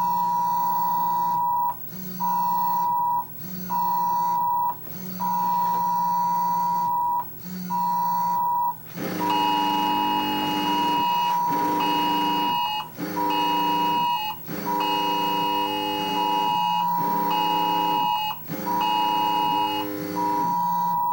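Wireless Emergency Alert attention signal: the two-tone EAS alert chord sounding in its cadence of one long tone and two short ones, repeating, with a low buzz in step with each tone. About nine seconds in a second device joins with its own, higher alert tones in the same on–off rhythm.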